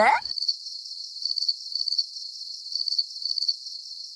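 Crickets chirping: a steady high-pitched trill that pulses in short groups.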